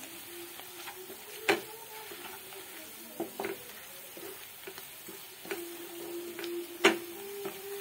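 Onions and ground spices sizzling in hot oil in a kadai as a spatula stirs them, with a few sharp knocks of the spatula against the pan, the loudest near the end. The masala is being lightly roasted with the fried onions.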